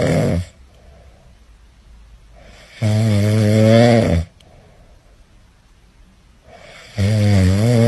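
Loud snoring: three long, rasping snores about four seconds apart, with quieter breaths between them.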